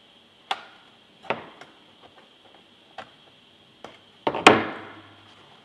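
A few sharp plastic clicks and taps as reinforcing filament is pressed into the groove of a 3D-printed wing panel. About four and a half seconds in comes a loud sharp snap as the filament is cut with side cutters.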